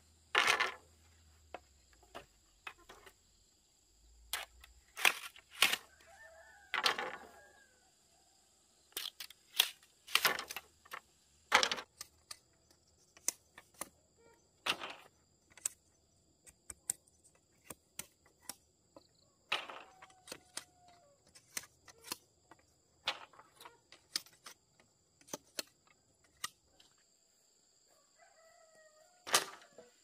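Sharp, irregular knocks and chops of bamboo being cut with a machete and handled, some loud, some light. A steady high insect drone runs underneath, and a chicken calls a few times, once near the end.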